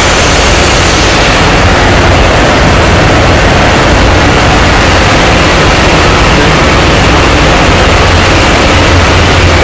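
Loud, steady roar of running machinery in a ship's engine room, an even noise over a low hum. The highest hiss eases slightly about a second and a half in.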